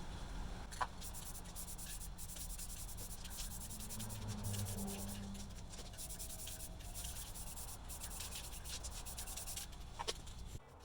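Scratchy rubbing strokes, irregular and steady, with a sharp click about a second in and another near the end.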